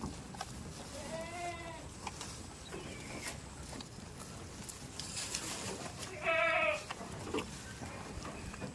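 Goat bleating twice: a fainter call about a second in, then a louder, quavering call past the middle, each under a second long.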